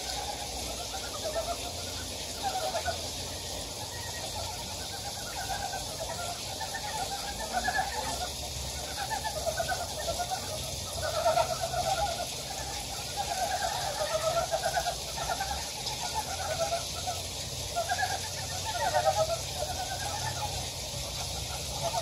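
A chorus of frogs croaking in a valley stream: many overlapping short calls, each a quick run of low clucks, one after another without a break, over a steady hiss. It is an early-spring breeding chorus.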